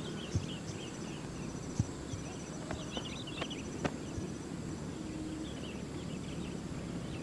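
Rural outdoor ambience: insects trilling in short repeated pulses, with scattered small bird chirps and a few sharp clicks.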